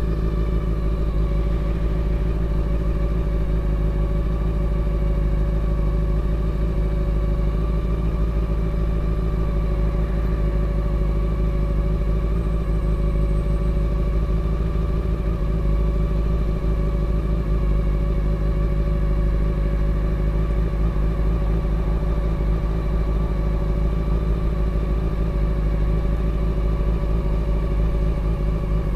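Honda CBR400RR (NC23) 400cc four-cylinder engine idling steadily with the motorbike at a standstill, at an even pitch with no revving.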